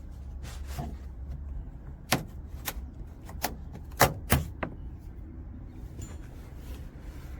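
Plastic trim push-clips being pried out with a trim clip tool. A series of sharp plastic clicks and snaps, loudest about four seconds in, with light rustling between them over a low steady hum.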